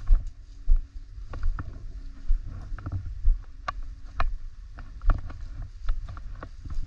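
Footsteps walking through leafy woodland undergrowth: a low thud with each step, a little under once a second, with rustling and small clicks in between.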